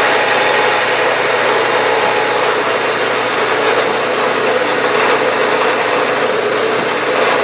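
Milling machine spindle running steadily with an even hum while a centre drill is fed down to spot the first hole of a bolt circle.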